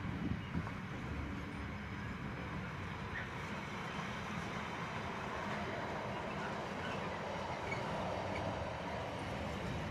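Container wagons of an intermodal freight train rolling past at speed, a steady rumble of wheels on rail.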